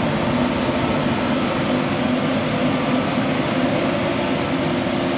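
A heavy engine running steadily, a constant drone without any revving.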